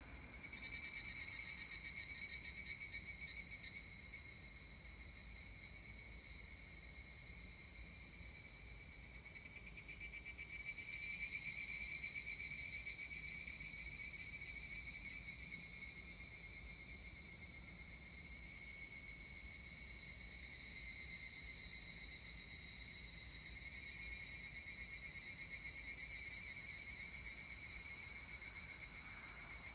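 Several higurashi (evening cicadas, Tanna japonensis) calling in a chorus of overlapping rapid, ringing trills. A louder caller comes in about ten seconds in and gradually fades.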